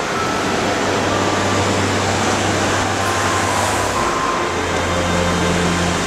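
Rushing water: a loud, steady, even noise that starts just as music fades out before it.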